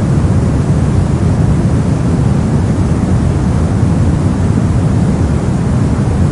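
Brown noise: a steady, loud, deep rushing hiss with most of its energy in the low end and little treble, unchanging throughout.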